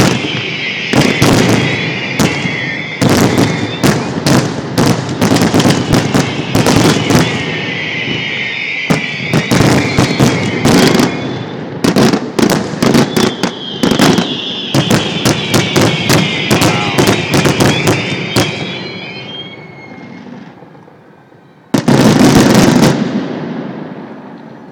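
Fireworks finale: a rapid barrage of aerial shell bursts, several bangs a second, with a high crackling sizzle that falls in pitch three times. The barrage thins out, then one last loud boom comes near the end and fades.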